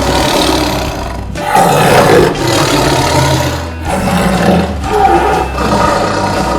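Tiger roaring, several long, loud roars one after another, with background music underneath.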